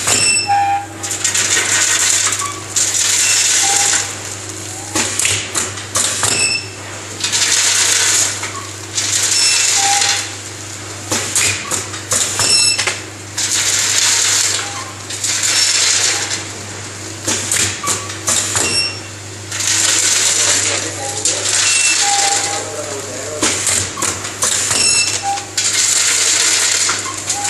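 Semi-pneumatic vertical form-fill-seal packaging machine running through its bagging cycle: a burst of compressed-air hiss every two to three seconds as its pneumatic jaws seal and cut each pouch, with metallic clicks over a steady motor hum.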